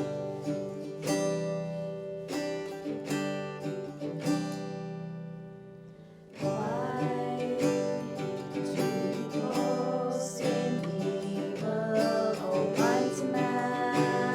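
Acoustic guitar strumming chords. The last chord rings out and fades, and about six seconds in fuller playing starts, with a melody line moving over the chords.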